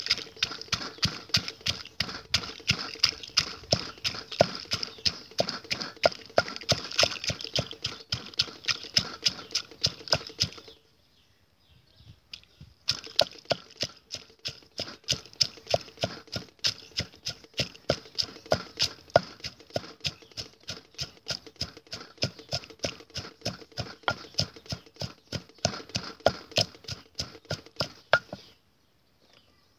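Wooden pestle pounding dried red chillies and garlic in a deep mortar: a quick, steady run of dull blows. It pauses for about two seconds near the middle, then starts again and stops shortly before the end.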